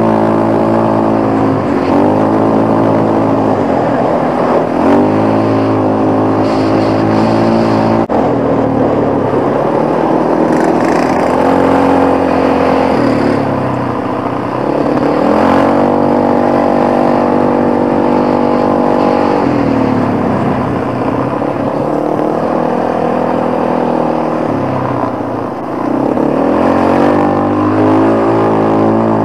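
Quad (ATV) engine heard from on board while riding. Its pitch rises and falls as the throttle opens and closes, with steady stretches in between.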